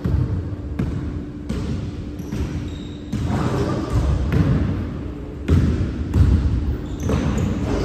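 Basketball bouncing on a hardwood gym floor as it is dribbled, a run of sharp thumps at uneven spacing, over a steady low hum.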